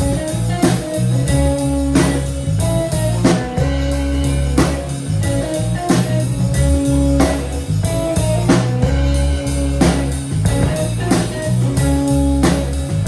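Instrumental band music: guitar over a bass line and a drum kit keeping a steady beat, in a bluesy rock style, with no singing.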